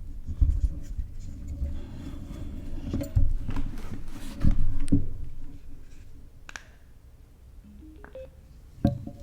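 Handling noise from a helmet intercom unit and its microphone: heavy thumps and rubbing over the first five seconds, a faint steady tone in the middle, then a few sharp clicks and one last thump near the end.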